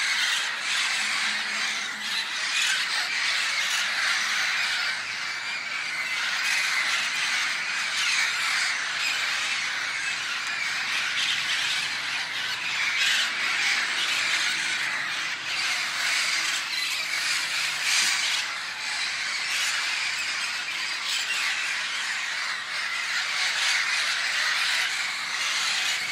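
A large flock of small songbirds calling all at once: a dense, continuous din of many overlapping high calls.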